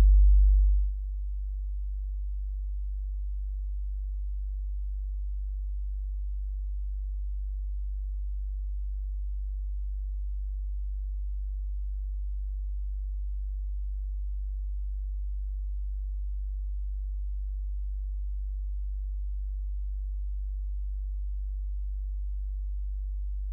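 A steady, very low electronic tone, a plain hum-like drone that holds at one pitch and level. It steps down in loudness about a second in.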